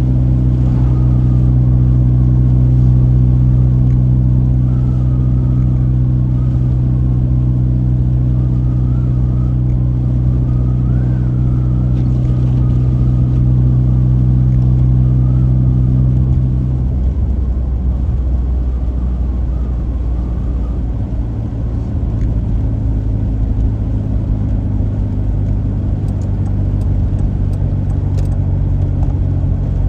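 A car driving, heard from inside: a steady low engine drone over road rumble. The drone drops lower about seventeen seconds in.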